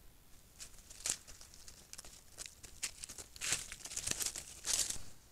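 Dry leaf litter rustling and crackling under a southern naked-tailed armadillo moving close past the microphone, in irregular scrapes that grow louder and denser in the last couple of seconds.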